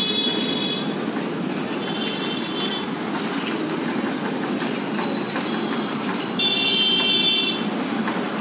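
Street traffic noise, a steady rumble, broken by three short high-pitched tones: one at the start, one about two seconds in, and a longer, louder one about six and a half seconds in.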